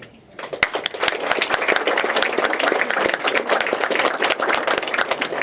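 Audience applauding, beginning about half a second in.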